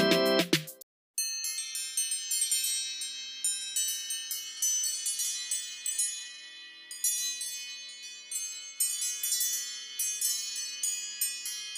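A phone ringtone of bright, tinkling chime notes, like wind chimes, ringing and overlapping in an irregular pattern. It starts about a second in, after a keyboard melody from the previous tone cuts off and a brief silence.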